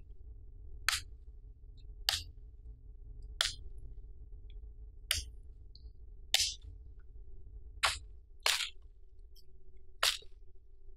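A large knife chopping into a green wood branch. About eight sharp, separate chops, roughly one every second or so, as twigs are trimmed off the branch.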